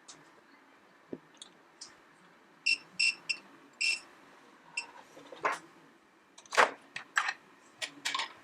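Small hand tools clicking and tapping on an iPhone XS logic board as the stacked board is separated, with scattered sharp clicks, the loudest about six and a half seconds in. A few short high tinks come together around three seconds in.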